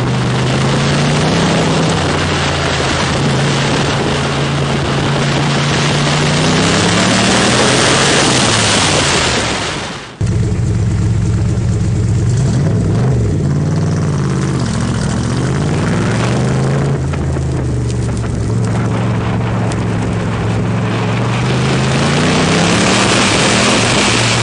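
Open-top sports car's engine repeatedly pulling hard and easing off through an autocross course, its pitch rising and falling with each acceleration and lift, over a steady rushing noise. The sound drops out suddenly about ten seconds in and picks up again at a similar pitch.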